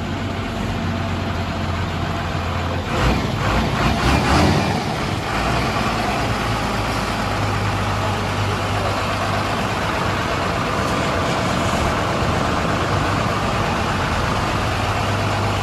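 Heavy vehicle's engine running steadily with a low hum, with a louder, rougher stretch about three to four and a half seconds in.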